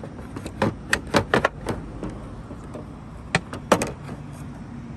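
Plastic tail light housing clicking and knocking against the car body as it is pushed into its clips on a Subaru Outback. A quick run of knocks comes about a second in, and two sharper knocks come near the end.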